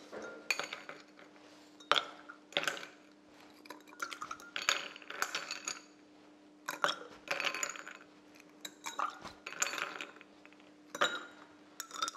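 Ice cubes being spooned from a glass bowl into glass champagne flutes: a metal spoon scraping and clinking on the bowl and ice clinking against the glasses, in a series of short clattering bursts a second or two apart.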